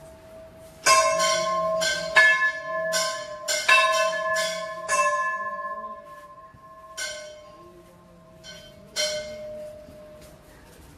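Hindu temple bell struck repeatedly, a quick run of strikes over the first five seconds and a few more later, each strike ringing on.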